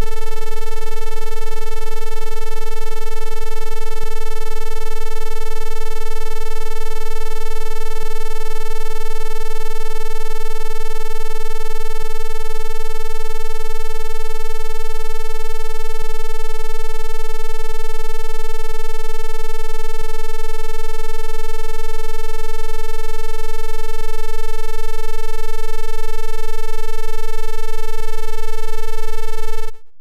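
Loud, continuous electronic beep of a 'no signal' test tone: one steady, buzzy pitch held unchanged, cutting off suddenly near the end.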